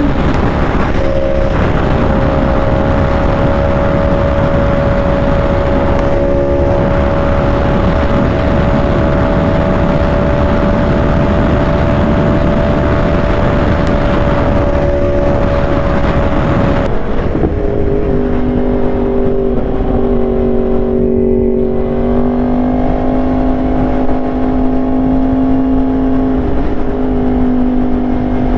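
Yamaha R1's inline-four engine running at a steady highway cruise, under heavy wind rush over the microphone. About two-thirds of the way through, the engine note drops to a lower pitch and holds there.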